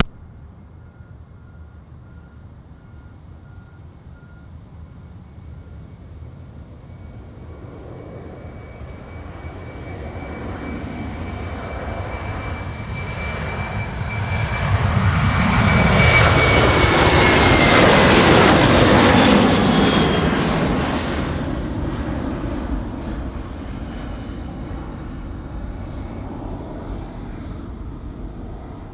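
Boeing 737-800's CFM56-7B turbofan engines at takeoff power during the takeoff roll and climb-out. The sound grows steadily louder, is loudest a little past halfway as the jet goes by, then fades as it climbs away. A high engine whine drops in pitch as it passes.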